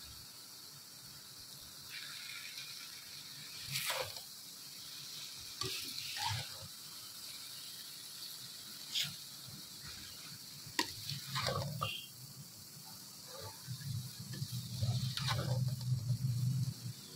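Metal spatula scraping and clinking against a wok as shredded cabbage, carrot and chicken are tossed and mixed, in scattered strokes. A low hum builds near the end.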